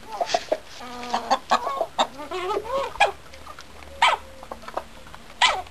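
Domestic chickens clucking and calling, with several loud, sharp calls standing out above the flock's softer chatter: the hen's so-called trumpeting.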